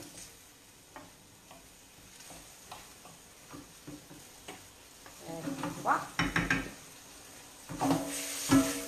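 Pasta and vegetables being stirred in a steel frying pan, sizzling faintly over the gas flame. In the second half the pan and utensil clatter and scrape, with several ringing metal knocks near the end.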